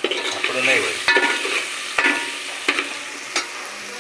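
Hot oil tempering sizzling in a large aluminium pot as a metal ladle stirs the seeds, tomato and green chilli. The ladle knocks sharply against the pot four or five times.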